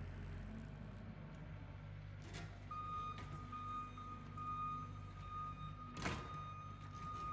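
Tractor engine running steadily while power raking. About two and a half seconds in, a steady high-pitched tone joins and holds. A sharp knock comes a little after that, and a louder one near the end.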